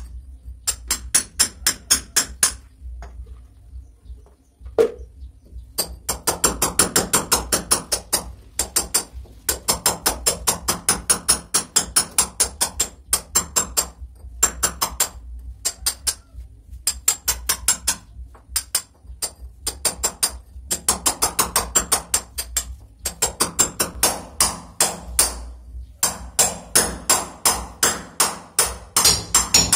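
Hammer blows on a chisel against a brick wall, in quick runs of about five strikes a second with short pauses between runs: cutting a channel in the brickwork for a water pipe.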